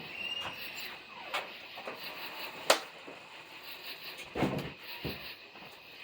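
Outdoor night ambience: a steady, evenly pulsing high-pitched chorus, broken by a few sharp clicks, the loudest near the middle, and a dull thump a little later.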